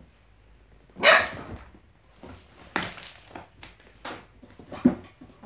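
Dobermann puppies barking at play: one loud bark about a second in, then several shorter, quieter barks.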